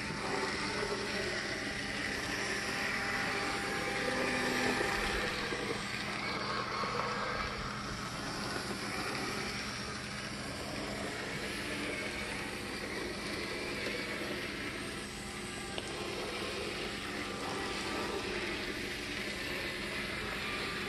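Märklin Z-scale 2-8-2 model steam locomotive running steadily around the track: a small electric motor whirring with its wheels running on the rails, over a steady low hum.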